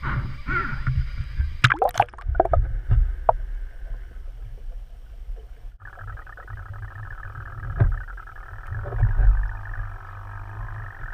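Water splashing with a few sharp knocks at the surface, then, a little over halfway, a sudden change to the muffled, steady hiss and low rumble of a microphone held underwater.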